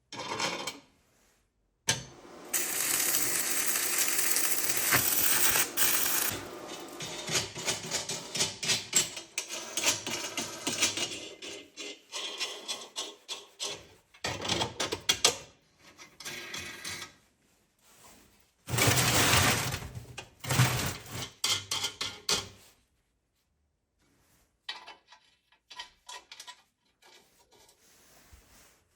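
Metal parts and hand tools being handled in a workshop: rapid ratchet-like clicking, rattling and scraping in short bursts, each cut off abruptly.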